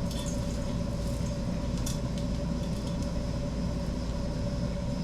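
A few light clicks and clinks from string lights and their plastic clips being handled, over a steady low hum.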